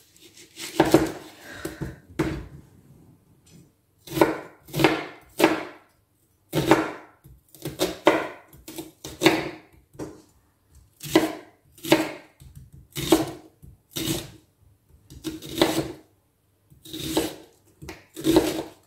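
Onion being cut with a large kitchen knife on a wooden cutting board: separate knocks of the blade hitting the board, one to two a second and unevenly spaced, with a few short pauses.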